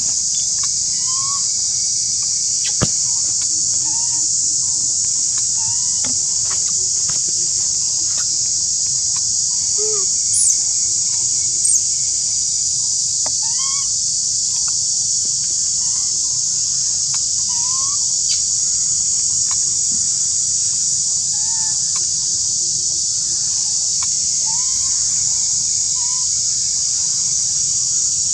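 Steady high-pitched drone of a forest insect chorus, with short rising chirps repeating every second or two and two brief high whistles about ten and twelve seconds in.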